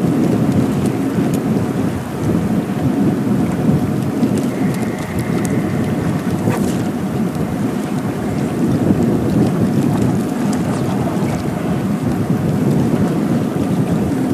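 Strong wind buffeting the microphone: a steady, loud, low rumbling rush.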